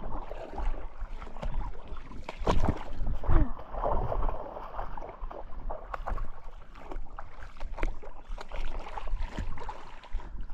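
Water sloshing and splashing in a shallow creek, with scattered irregular knocks and wind rumbling on the microphone.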